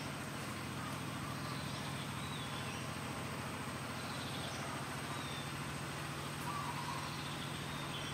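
A steady low engine hum, with short chirping bird calls over it three times.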